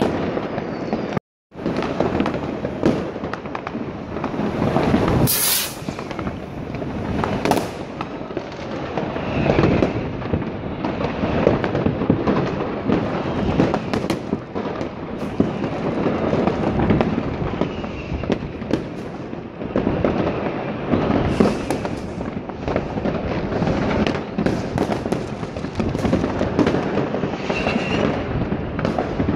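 New Year's Eve fireworks and firecrackers going off all over the city: a dense, unbroken stream of overlapping bangs and crackling, with a short whistle now and then. The sound drops out completely for a moment about a second in.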